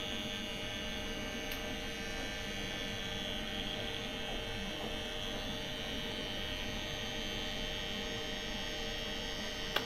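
Pen-style rotary tattoo machine running with a steady, even hum while it needles ink into the skin of an arm.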